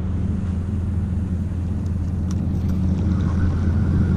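Boat motor running with a steady low hum.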